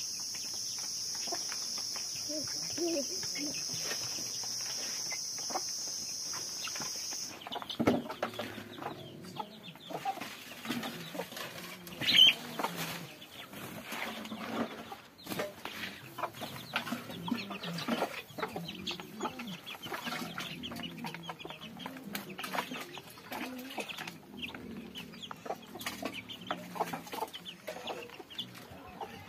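Chickens clucking in short, irregular calls, with one loud squawk about twelve seconds in. For the first seven seconds a steady high-pitched buzz runs under them and cuts off suddenly.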